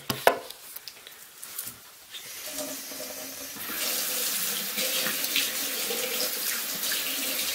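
Bathroom sink tap running, water splashing into the basin while hands and face are washed. The water starts about two seconds in and swells to a steady rush by about four seconds. A sharp knock comes right at the start.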